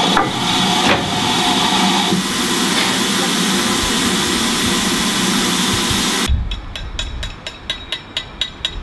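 Steam hissing loudly and steadily from a standing Southern Railway U class steam locomotive. About two thirds of the way in it cuts off abruptly to a quieter scene of rapid, evenly spaced metallic clicks, about four a second.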